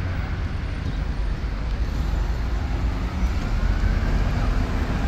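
Road traffic passing on a city street: a steady low rumble of car engines and tyres.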